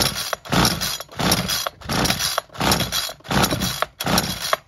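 Recoil starter cord of a Ryobi petrol two-stroke multi-tool yanked about seven times in a steady rhythm, the engine turning over with each pull but never firing: a hard-starting engine that will not catch on half choke.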